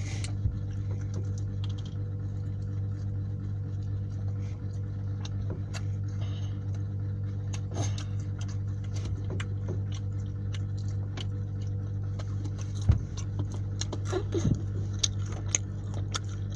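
A steady low hum with many scattered light clicks and taps, and a louder knock about thirteen seconds in.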